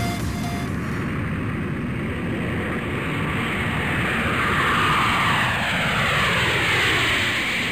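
Electronic music stops within the first second. It gives way to a rushing noise like an aircraft flying past, which swells and sweeps downward in pitch.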